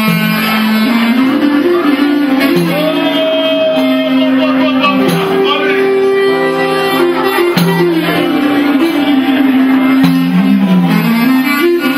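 Live Epirote folk band playing: a clarinet leads an ornamented, winding melody over laouto (lute) accompaniment.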